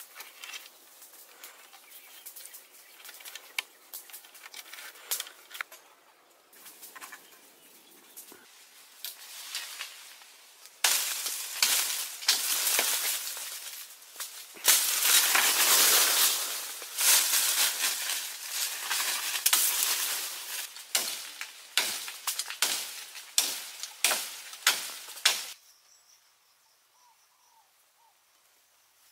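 Leafy branches and wooden poles rustling, crackling and knocking as they are handled by hand. Scattered clicks at first, then loud rustling with sharp snaps through the middle, stopping suddenly a few seconds before the end.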